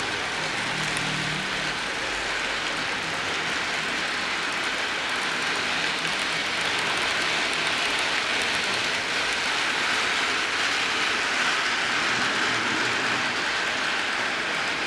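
HO scale model freight hopper cars rolling past on the track, their small wheels making a steady hiss on the rails.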